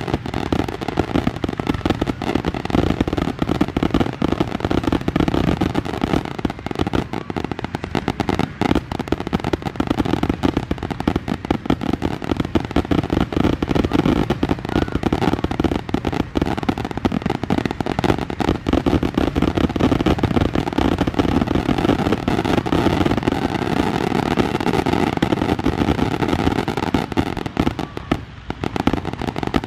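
Fireworks finale barrage: shells launching and bursting in rapid, overlapping bangs with crackle, so dense that no single shot stands apart. The barrage briefly eases near the end.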